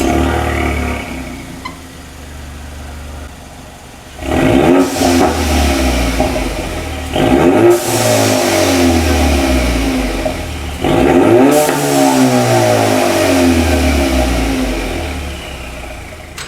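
Ford EcoBoost Mustang's 2.3-litre turbocharged four-cylinder idling, then revved three times, each rev rising and falling back. It is breathing through a Redline360 downpipe and a Roush axle-back exhaust.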